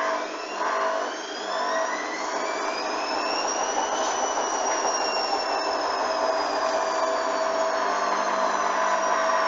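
Hoover washing machine's motor whining up in pitch as the drum speeds up for a spin, peaking about four seconds in and then slowly winding back down: the load is unbalanced, so the spin is abandoned.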